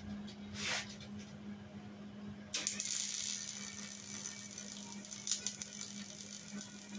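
Wire-feed welder arc striking about two and a half seconds in and then crackling steadily as weld is laid to fill holes and gaps in the Jeep's steel body mount, over a steady low hum.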